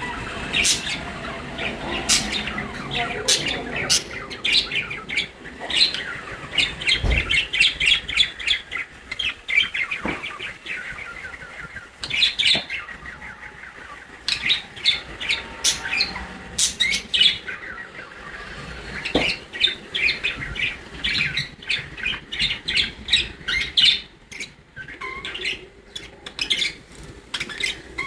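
Budgerigar chattering in fast runs of short chirps and squawks, with brief pauses and an occasional soft knock.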